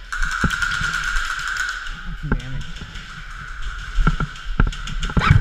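Airsoft guns firing: a rapid run of clicking shots, then several separate sharp cracks near the end.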